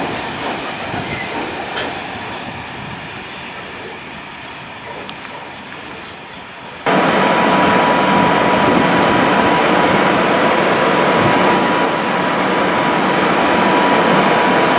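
Freight train wagons rolling away along the track, the wheel and rail noise slowly fading. About seven seconds in it cuts abruptly to a louder, steady rushing noise with a constant high tone.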